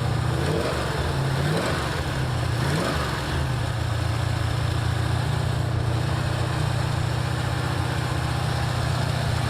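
1984 Ford Mustang GT350's carburetted engine idling on the choke, with an exhaust leak at the headers, which the owner hears as something that doesn't sound good. The note wavers a little in the first three seconds, then runs steady.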